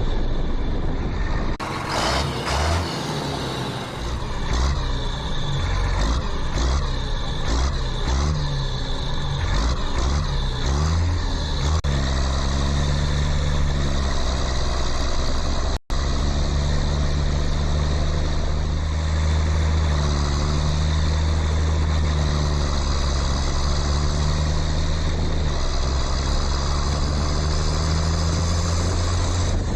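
Engine running steadily, uneven at first and then even, with a sudden brief dropout about halfway.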